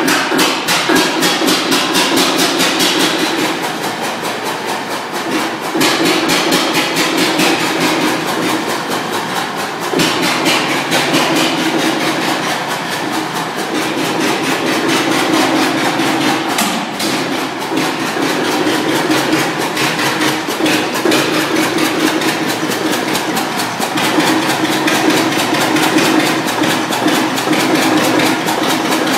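Svoboda 15 tractor's single-cylinder engine running just after being started by hand on its flywheel, firing in a steady, rapid knocking beat that swells and eases slightly from time to time.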